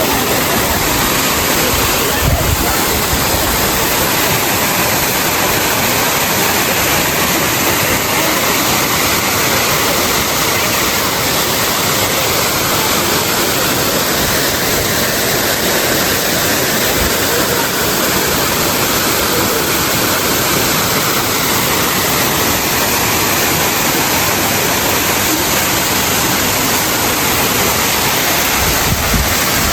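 Waterfall: water falling and splashing with a loud, steady rush.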